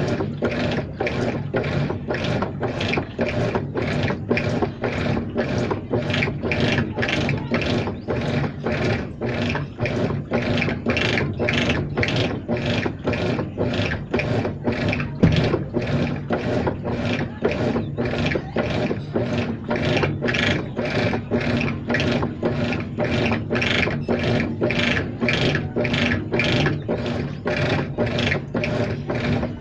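Washing machine running with a regular, rhythmic scraping noise repeating evenly over a steady motor hum, the kind of strange noise the machine is being checked for. One sharp knock stands out about halfway through.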